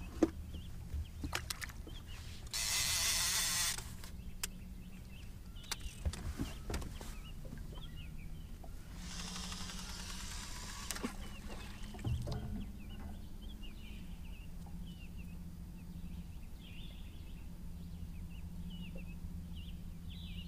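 Fishing line hissing off a reel on a cast, a loud hiss about three seconds in lasting about a second, then a second, fainter and longer hiss around ten seconds in. Scattered clicks and knocks of the tackle sound between them over a steady low hum.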